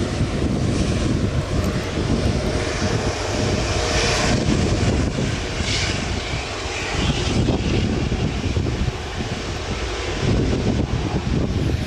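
Airbus A380's four jet engines running at low taxi thrust, a steady rumble with a hiss that swells a little as the airliner rolls past and turns away.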